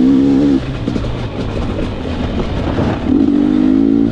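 Gas Gas EC 250 two-stroke dirt bike engine revving under throttle while riding rough ground, with a held note at the start and another that climbs in pitch from about three seconds in.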